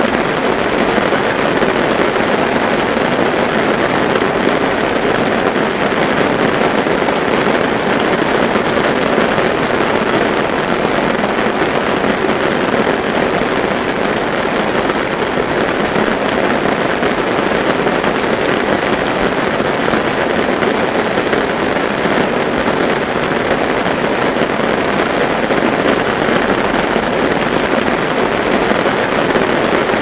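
Steady rain falling, a dense, even patter of drops that never lets up.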